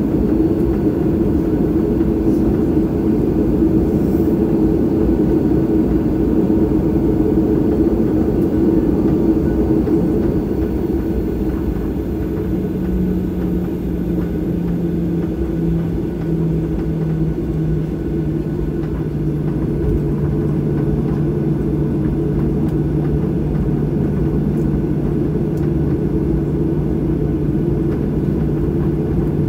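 Jet airliner cabin noise while taxiing after landing: a steady, loud rumble with a hum. About twelve seconds in, a lower hum comes in and steps down in pitch before holding steady.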